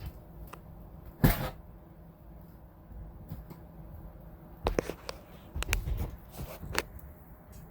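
Scattered knocks and clicks from a roof air conditioner being installed, with one sharp thump about a second in and a cluster of clicks and knocks later on.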